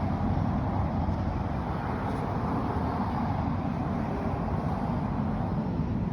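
Wind buffeting the microphone outdoors: a steady, uneven low rumble with a hiss above it.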